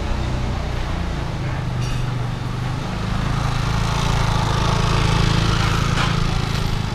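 Street ambience with a motor scooter engine running close by, its hum growing louder about halfway through. A short clack comes near the end.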